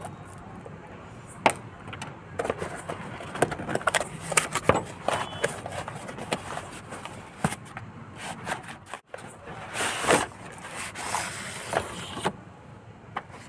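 Cardboard box and packaging being opened and handled: scattered taps and knocks with rustling and sliding, the longest sliding scrape about ten to twelve seconds in.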